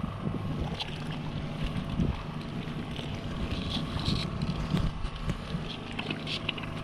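A boat engine running steadily under wind on the microphone, with scattered light knocks and rustles as a purse-seine net's float line and floats are hauled in by hand.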